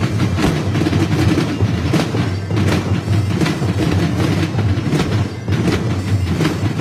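Drum corps drumline playing fast, dense rhythms on marching drums, a steady run of strokes with a brief drop in level about five seconds in.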